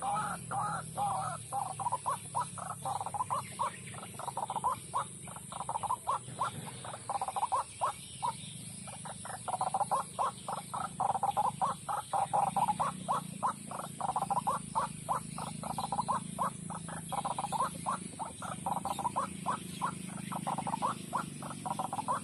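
White-breasted waterhen (ruak-ruak) calling: a long run of short, rapidly repeated calls, about four or five a second, with a brief let-up about eight seconds in.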